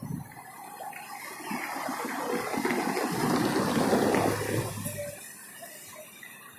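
Tour coach's diesel engine and tyres driving through a roundabout, a rushing noise that swells to a peak and fades about five seconds in.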